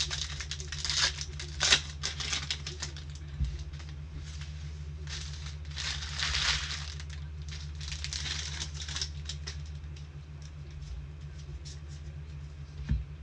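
Trading-card pack wrappers crinkling and rustling as packs are torn open and cards are handled, in irregular bursts with small clicks, over a steady low electrical hum.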